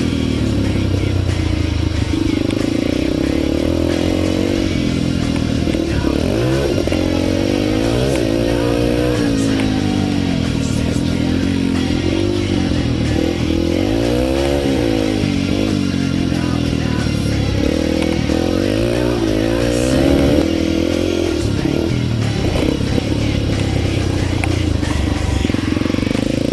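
Yamaha TTR 230's single-cylinder four-stroke engine being ridden hard, its pitch rising and falling again and again as the throttle opens and closes.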